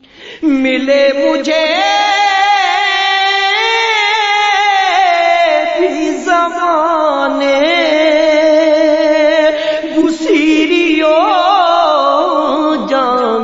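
Unaccompanied naat singing without clear words: long, ornamented vocal notes with wavering pitch over a lower sustained chanted vocal drone, starting about half a second in.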